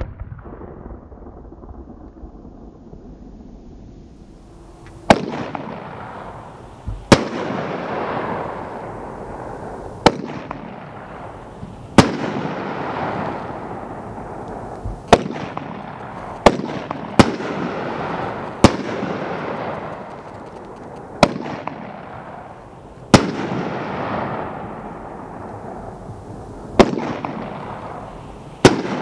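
Red Rhino 'Stacked' consumer fireworks cake firing. About five seconds in, the shots begin: roughly a dozen sharp bangs at uneven intervals, a few in quick pairs. Each bang is followed by a crackling wash that fades over a couple of seconds.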